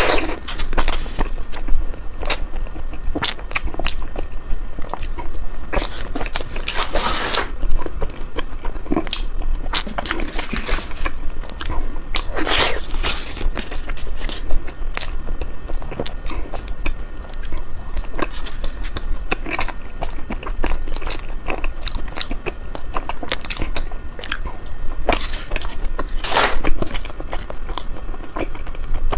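A person biting and chewing ice cream, with a steady run of short, sharp crunches and a few longer crunching bites.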